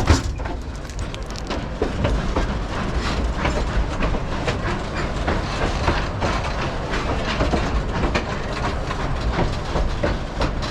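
Narrow-gauge railroad cars rolling along the track: a steady low rumble with irregular clicks and clatter from the wheels and running gear, including one sharp click right at the start.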